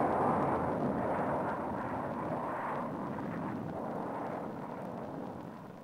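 Douglas A-4 Skyhawk jet's engine roar, a rushing noise that fades steadily away as the aircraft comes to rest in the nylon crash barricade.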